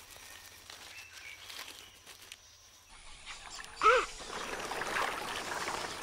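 Faint rustling at first, then a flock of wetland birds calling. One loud, short call stands out about four seconds in, followed by a busy chatter of many birds.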